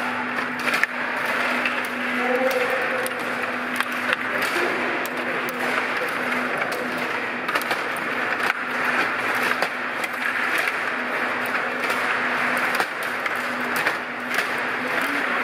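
Stiga Play Off table hockey game in play: frequent sharp clicks and knocks of the puck against the players' plastic figures, the boards and the rods, over a steady murmur of voices in the hall and a low hum.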